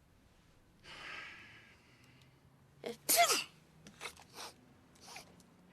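A small character sneezing: a breathy intake of breath, then one sharp, high-pitched sneeze about three seconds in, followed by a few small clicks. The character is sick from swallowing laundry detergent.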